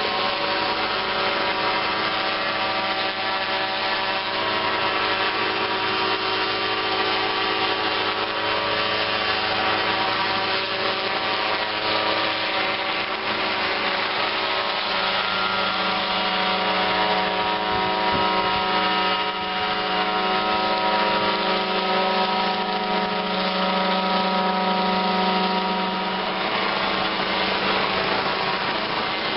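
Small unmanned helicopter's engine and rotor running steadily as it flies low over a rice paddy, a continuous buzzing drone of even pitch. From about halfway through, a lower hum grows stronger for roughly ten seconds.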